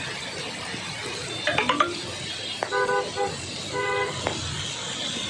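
Vehicle horns honking in rain-soaked city traffic: several short honks between about two and a half and four seconds in, after a brief high squeal about a second and a half in, over a steady noise of rain and traffic.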